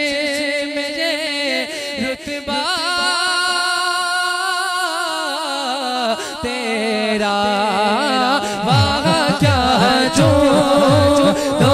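A man singing an Urdu devotional song (naat) into a microphone, drawing out long, wavering, ornamented notes over a steady drone. About three-quarters of the way through, low beats with a falling pitch come in under the voice.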